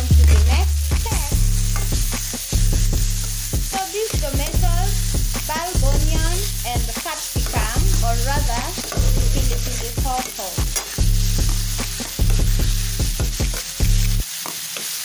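Vegetables frying and sizzling in a pan while being stirred, a steady hiss with occasional scrapes and clicks. Background music with a bass line and a melody plays over it and stops abruptly near the end.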